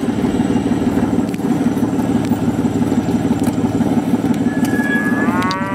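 Motor vehicle engine and road noise while driving, a steady low rumble.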